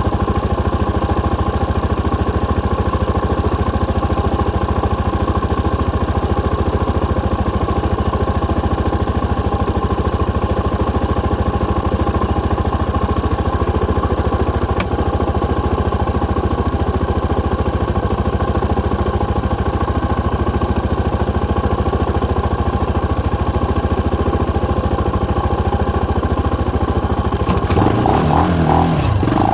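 Benelli BN125's single-cylinder 125 cc engine idling steadily through its original exhaust with the dB killer fitted, then revved up and down a few times near the end.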